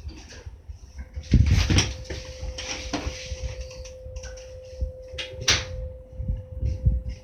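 Unexplained noise heard in a bedroom: low, irregular thumping, with a steady hum that sets in about a second and a half in and a few sharp clicks and rustles on top.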